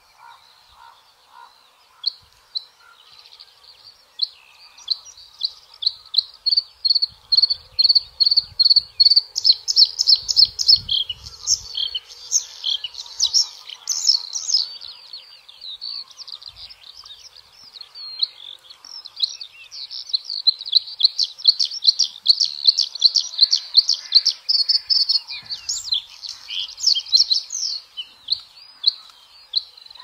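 Bluethroat singing: a fast, varied song of rapid high chirps, trills and repeated notes, swelling into two long loud passages in the middle and again later on.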